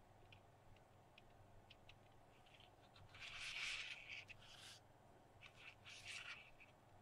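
Faint handling noise from a small electronic sensor board, a magnet and their wires being handled by hand: a few light ticks, then soft scraping and rustling about three seconds in and again near the end.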